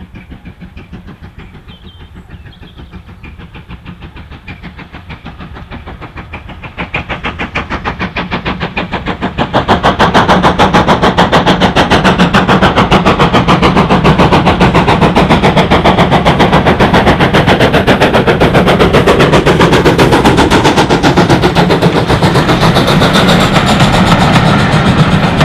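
Steam locomotive working hard at speed, its exhaust beats in a rapid, even rhythm. It grows louder as it approaches and is loudest from about ten seconds in.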